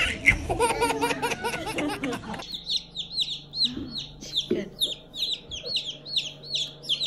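Baby chicks peeping: a rapid string of short, high, downward-falling peeps, several a second, starting about two and a half seconds in.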